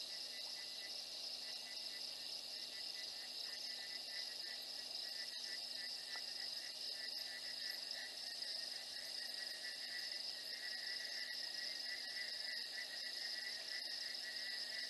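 Night insect chorus: a steady high trill, joined about ten seconds in by a lower, rapidly pulsing trill.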